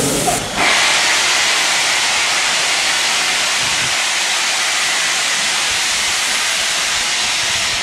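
Bulleid West Country class 4-6-2 steam locomotive 34027 'Taw Valley' blowing off steam: a loud, steady hiss that starts about half a second in and holds without a break.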